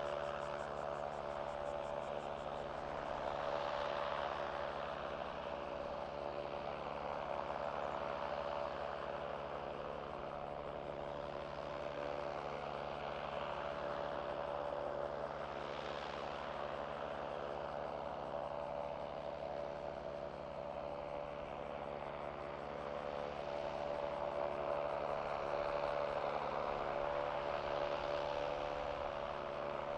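Steady machinery noise from the apron around a parked Boeing 767 jetliner: a droning hum with a held tone, slowly swelling and easing every few seconds.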